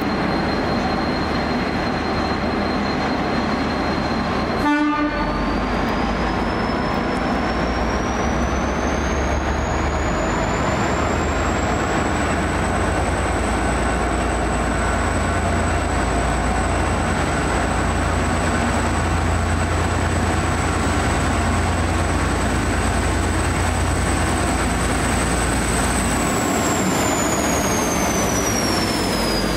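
V/Line N class diesel locomotive moving off: a brief horn blip about five seconds in, then the engine throttles up with a deep rumble. A high whine rises over several seconds, holds steady, and falls away near the end as the engine eases off.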